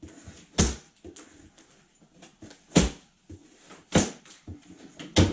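Plastic banding straps around a cardboard 3D printer box being cut and snapping loose one after another: four sharp snaps, one to two seconds apart, with small clicks and rustles between them.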